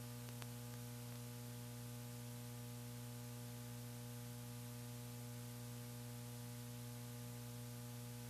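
Steady electrical mains hum with a faint hiss: line noise on the broadcast commentary audio feed.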